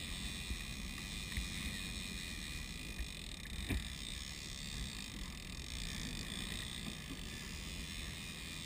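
Boat engine running steadily while trolling, with wash of water and wind. A single short knock a little before four seconds in.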